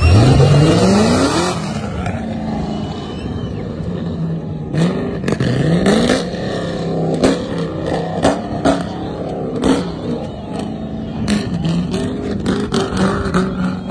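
Off-road buggy's engine revving hard, rising steeply in pitch in the first second or so, then running at a steadier pitch with repeated short revs as it climbs. Sharp knocks come again and again through the second half.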